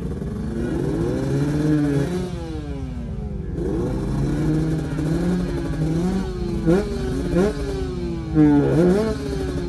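Motorcycle engine revving hard, its pitch climbing and dropping back again and again as the gears change, with a few short sharp rev spikes in the second half.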